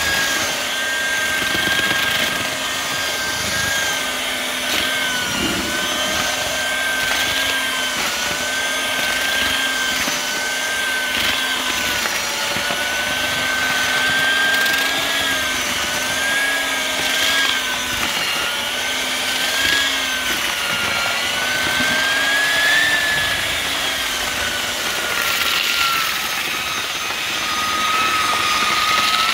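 Eibenstock twin-paddle electric mixer running steadily as it whisks freshly slaked quicklime and sand into hot-mixed lime mortar in a metal dustbin. Its motor whine wavers slightly in pitch as the load on the paddles changes.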